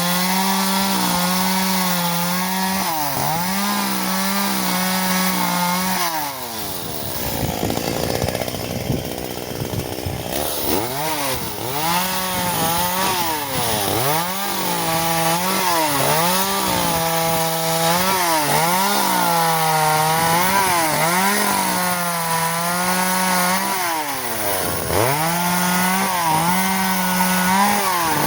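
Echo CS-370 two-stroke chainsaw cutting wood at high revs, the engine pitch dipping again and again as the chain bites. From about six to eleven seconds in it drags down hard in a heavy cut before climbing back.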